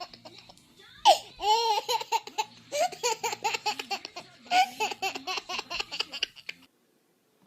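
A person laughing heartily, a fast run of short repeated ha-ha sounds, cutting off suddenly about a second before the end.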